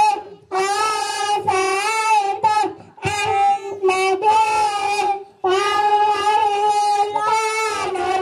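A child singing without instruments, in long held phrases broken by short pauses about half a second, three seconds and five and a half seconds in.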